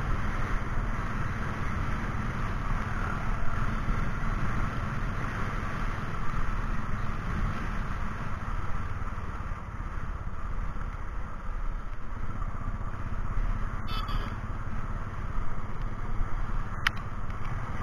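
Motorcycle engine running steadily while riding, picked up by an action camera mounted on the bike, under a steady rush of noise. Two short clicks come in the last few seconds.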